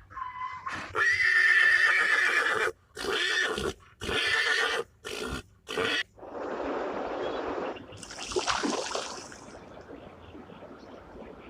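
Horse whinnying: one long call followed by several shorter ones, then a breathy noisy stretch over the last half.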